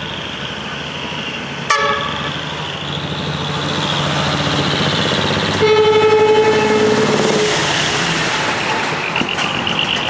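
Decorated truck's diesel engine running as it pulls away, with a short horn toot about two seconds in and a louder air horn blast lasting about two seconds around the middle.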